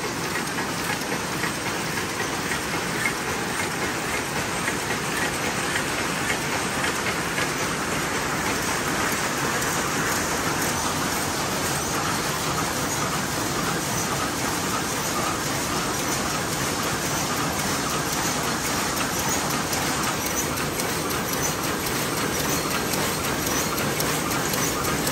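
Weaving looms in a jute mill running together, making jute sacking: a dense, steady mechanical clatter of many machines at once.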